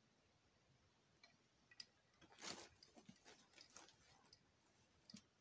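Near silence broken by faint clicks and short rustles of hands handling fly-tying tools and material at the vise: a cluster of small clicks in the middle and one more click near the end.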